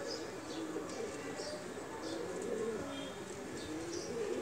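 Doves cooing over and over, with scattered short high chirps from small birds.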